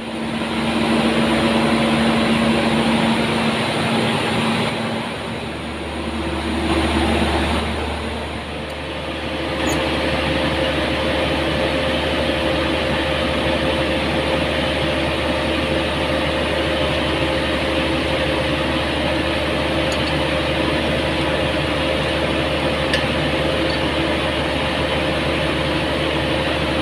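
Steady drone of palm oil mill machinery: pump and motor noise with steady hums. About nine seconds in the hum shifts to a higher tone, which then holds.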